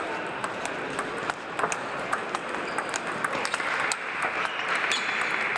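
Table tennis balls clicking sharply and irregularly off bats and tables, from the rally at hand and from other tables in play around it. Under the clicks runs a steady background noise of a large hall, which grows somewhat louder about three seconds in.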